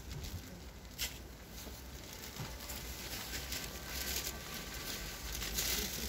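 Rustling and shuffling as wreaths of flowers and ribbon are laid on a grave, with a sharp click about a second in and brief rustles around four and six seconds in.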